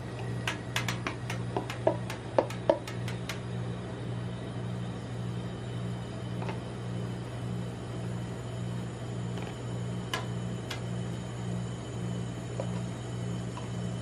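A steady, pulsing low hum from the rolled-ice-cream freezing pan's refrigeration unit. Over it, metal tongs and utensils click and tap against the steel plate and each other, several times in quick succession in the first few seconds, then a few scattered clicks.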